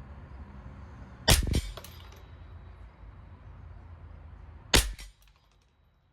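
Two .22 LR rifle shots about three and a half seconds apart, each a sharp crack with a short ringing tail.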